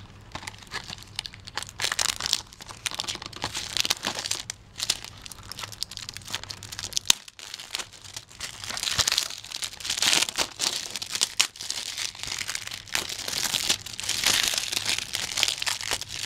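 Plastic shrink wrap being torn and peeled off a Blu-ray case, crinkling and crackling in irregular bursts with an occasional sharp click.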